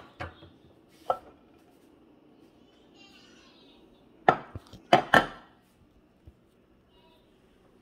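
Sharp knocks and clunks of handling on a kitchen counter as a glass bowl of chopped zucchini is picked up and the camera is moved. The loudest come in a quick cluster about four to five seconds in.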